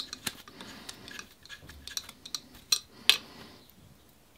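Adjustable spanner clicking and clinking against the metal needle end of a Graco Cleanshot shut-off valve as it is tightened: a few sharp metal ticks near the start and two more about three seconds in.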